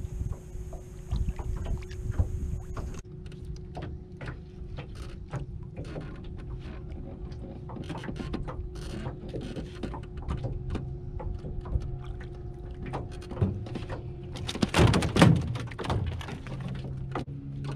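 Irregular clicks and knocks of handling in a small aluminum jon boat while a small blue catfish is reeled in on a rod and reel, with one loud burst of noise about fifteen seconds in.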